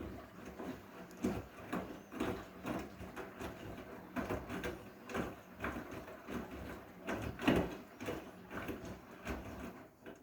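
Washing machine washing heavy blankets: the drum turns, with irregular sloshing and soft thuds as the wet load tumbles, over a steady motor hum.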